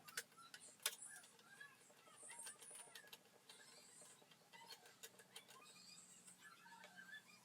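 Faint small clicks and ticks of a screwdriver and screws, with two sharper clicks in the first second, as screws are taken out of an Xbox Series S motherboard.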